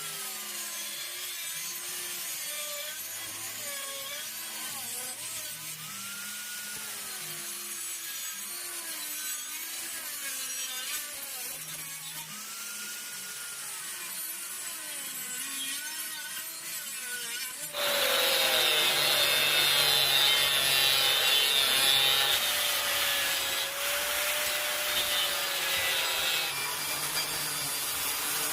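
Angle grinder working steel, its motor pitch sagging and recovering as the disc is loaded. About two-thirds of the way through it turns suddenly louder and harsher as the disc bites into the metal.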